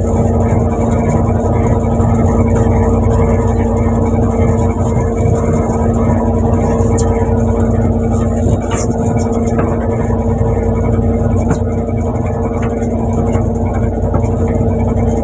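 Fishing boat's engine running steadily, a constant hum at one even pitch over a low rumble. A few light clicks and knocks from deck gear come through about halfway.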